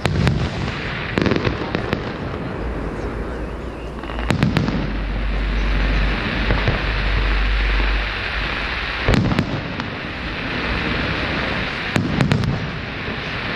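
Aerial fireworks display: shells bursting with sharp bangs at irregular intervals, several close together about four seconds in and two more near the end, with a deep rumble in between.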